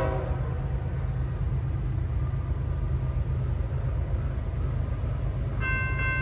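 Multi-tone train air horn from a train out of sight. One chord cuts off right at the start, a steady low rumble carries on, and a higher-pitched horn chord starts again shortly before the end.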